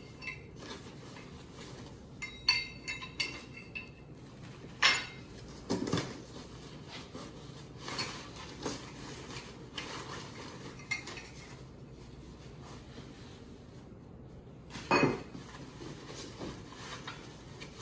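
Metal roof-rack parts and loose bolt hardware being handled: scattered clinks and knocks, some ringing briefly, with a few louder knocks.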